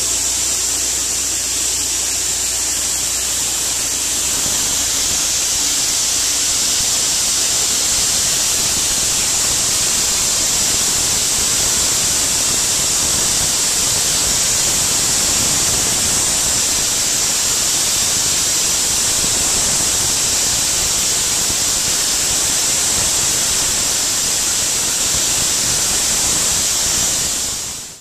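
Soda blaster nozzle spraying baking soda with compressed air: a loud, steady, high hiss that fades out quickly at the very end.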